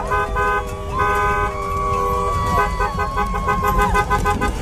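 Many car horns honking at once: rapid short beeps, about four a second, overlapping long held blasts that bend in pitch, over a steady low rumble.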